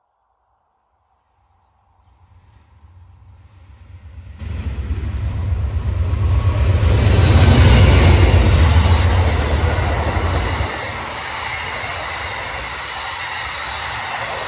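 Amtrak passenger train of Amfleet coaches passing through on the far track. A deep rumble builds from about two seconds in, swells loudest around the middle as the head end goes by, then eases to a steady rush of wheels on rail as the coaches pass.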